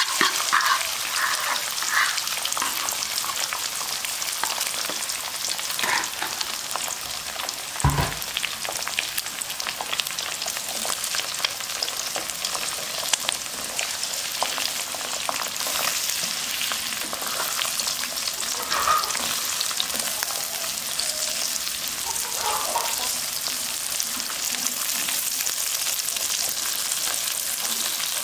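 Beaten eggs sizzling in hot oil in a wok, a steady frying hiss, with scattered scrapes and taps of a plastic spatula against the pan and one louder knock about eight seconds in.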